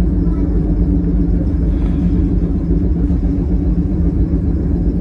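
Steady low hum and rumble of a stationary Sangi Railway electric train's onboard equipment, heard from inside the carriage, with several steady tones.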